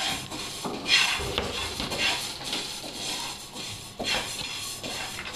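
Kitchen knife cutting raw carrot into sticks and knocking on a plastic cutting board, a few separate cuts about a second or two apart.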